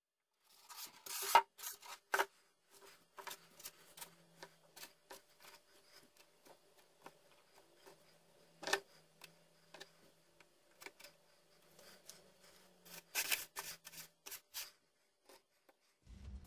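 Faint handling noise of hands working small fabric sandbags onto a foam model pillbox: irregular rubbing with scattered light clicks and taps, a few of them louder.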